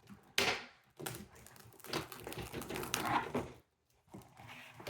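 Plastic cling wrap crinkling and rustling as it is handled and cut, in irregular bursts of crackling with a short pause about three and a half seconds in.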